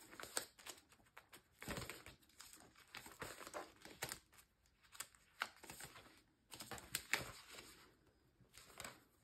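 Cash envelopes in a budgeting binder being flipped through and handled: soft, intermittent paper rustling and crinkling with a few light clicks.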